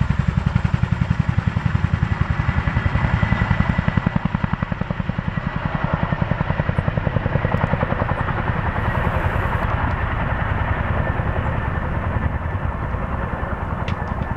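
Boeing CH-47F Chinook tandem-rotor helicopter climbing away after takeoff. Its rotors beat in a rapid, even chop over a steady high turbine whine, slowly fading as it moves off.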